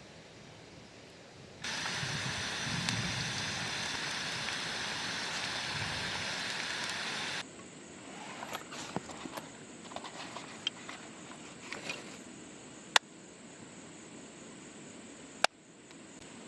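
A loud, steady rushing of falling water or rain that starts abruptly after a second or so and cuts off suddenly about halfway through, followed by quieter outdoor noise with scattered small ticks and two sharp clicks near the end.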